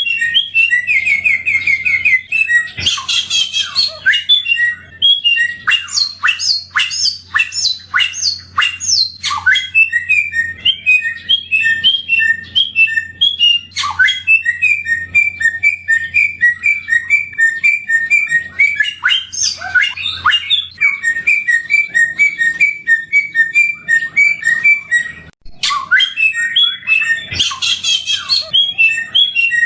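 A samyong bird singing a continuous, varied song: runs of rapid repeated whistled notes, fast trills and sharp sweeping chirps. The song breaks off briefly about 25 seconds in, and a faint low hum runs under the first two-thirds.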